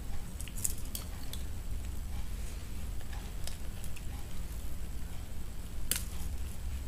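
A few light clicks from fishing line, a hook and scissors being handled, with a sharper click about six seconds in, over a steady low hum.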